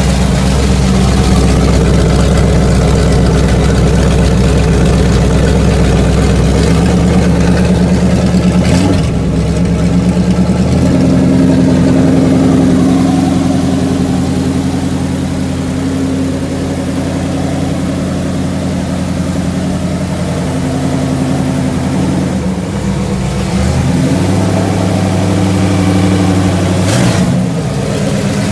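Rebuilt 454 big-block V8 running at idle, its engine speed shifting up and down in several steps.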